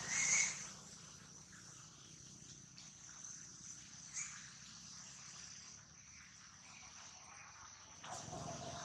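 Steady high-pitched chirring of insects, with a short, loud, high-pitched call about a third of a second in, and a brief rustling burst just before the end.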